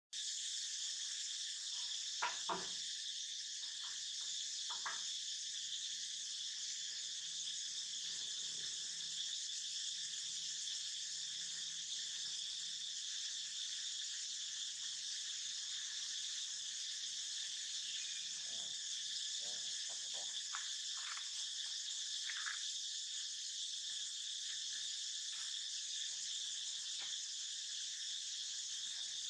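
Steady, high-pitched insect chorus droning without a break. A few short faint knocks and clicks sound over it, the sharpest about two seconds in.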